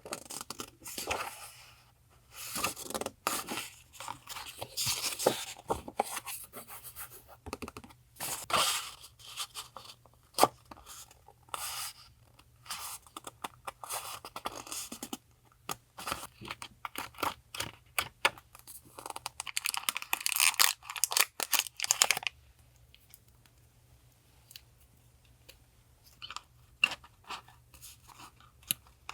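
Paper being handled: irregular rustling, crinkling and sliding of sheets and notebook pages, with a quieter lull about three quarters of the way through. A refrigerator hums low and steady underneath.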